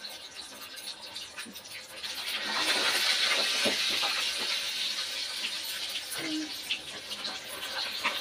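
Hot oil sizzling steadily as rice-flour-coated baby potatoes deep-fry, swelling up about two seconds in. Under it, soft scratching of fingers rolling potatoes in a bowl of dry rice flour.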